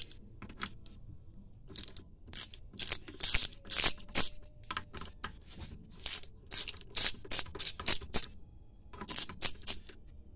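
Ratchet wrench clicking in quick runs of strokes while working the 10 mm bolts on an oil pump: a long run of clicks, then a pause and a shorter run near the end.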